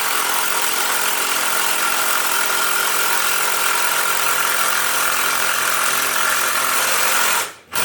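Power drill driving a 6-inch screw into a wooden log post, the motor running steadily under load. It cuts off suddenly near the end, where the screw has bound too tight after about 3.5 inches and the drill stalls.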